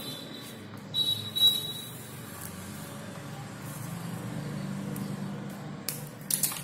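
Wires being handled and a wire cutter snipping a thin wire, heard as rustles and a few sharp clicks, with a cluster of clicks near the end, over a faint low steady hum.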